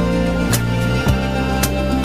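Background music: plucked guitar notes over sustained tones with a light regular beat.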